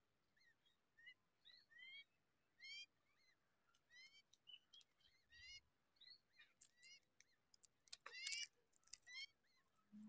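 Nestling birds begging with faint, short, high chirps that rise in pitch, repeated every half second or so. They grow louder and crowd together about eight seconds in.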